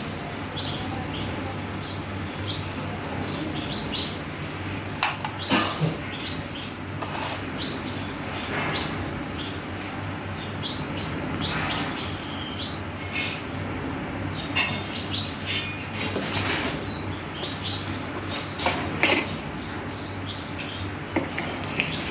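Plastic packaging and a boxed keyboard being handled: irregular rustling and crinkling in short bursts with light knocks, over a steady low hum.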